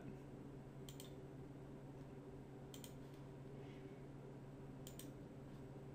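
Three faint computer mouse clicks, about two seconds apart, over a low steady hum.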